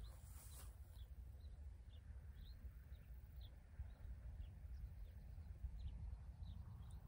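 Faint, short bird chirps repeating roughly twice a second over a low wind rumble on the microphone.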